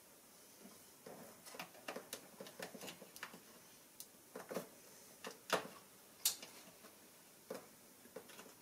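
Light, irregular clicks and taps of plastic electrical connectors and wiring-harness clips being handled and pushed home on a car engine's harness, with two sharper clicks about five and a half and six seconds in.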